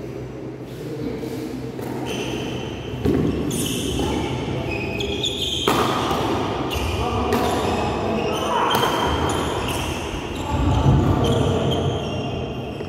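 Badminton rally: rackets striking the shuttlecock and players' footfalls on the court, as scattered sharp hits and thuds echoing in a large hall.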